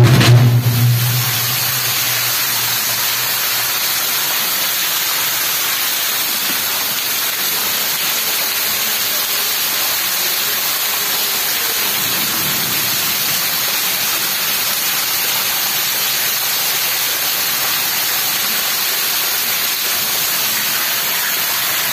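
A steady, unbroken hiss at an even level, with no speech or separate events in it.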